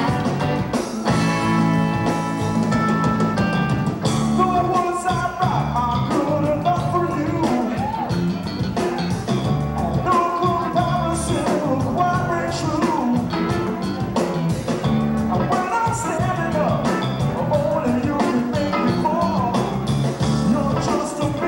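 Live rock band playing: electric guitars, bass, drums and keyboards with a steady beat, and a wavering lead melody line over it from about four seconds in.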